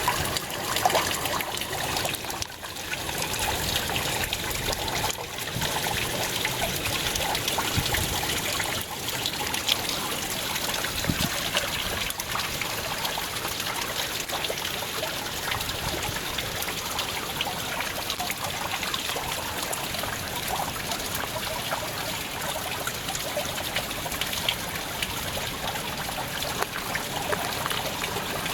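Stream water trickling and splashing steadily over the rocks of a waterfall.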